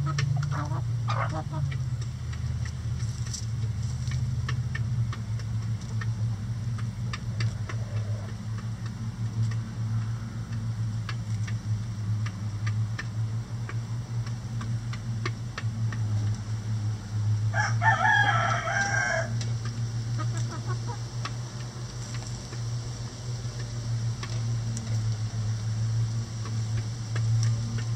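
A rooster crows once, about two-thirds of the way through, a call of under two seconds and the loudest sound here. Around it are a brief softer chicken call at the start, scattered faint clicks of beaks pecking at a hanging cabbage, and a steady low hum.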